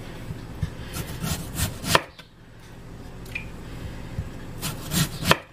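Kitchen knife slicing through a raw potato onto a wooden cutting board: a series of short knocks as the blade goes through and meets the board, the sharpest about two seconds in and two more close together near the end.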